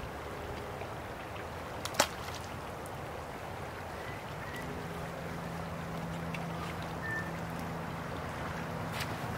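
Steady rush of flowing creek water around a wading angler, with one sharp click about two seconds in and a faint low hum joining about halfway.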